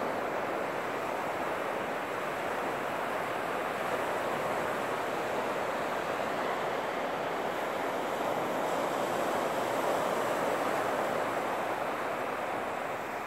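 Ocean surf breaking and washing on a sandy, rocky beach: a steady rush of waves that swells a little about eight to ten seconds in.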